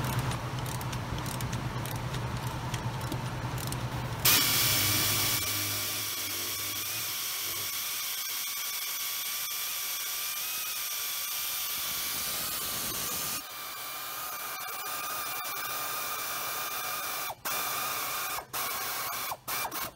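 Pneumatic air ratchet running a differential bushing bolt down snug before it is torqued to spec. Its high whine and air hiss start suddenly about four seconds in and run steadily for nine seconds or so. It goes on a little quieter, with several brief stops near the end.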